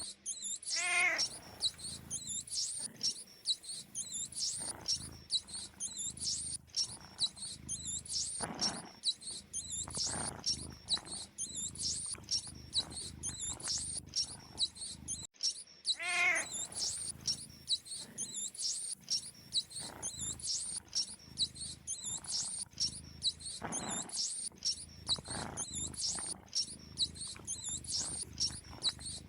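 Mice squeaking: rapid, high-pitched chirps with hardly a pause, and a falling call about a second in and again about halfway through. It is a recording looped about every 15 seconds.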